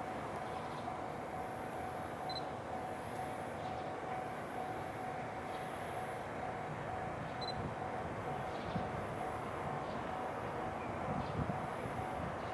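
Freight train hauled by an EF510 electric locomotive moving off from the station: a steady whine over running noise, with a low rumble building in the last few seconds.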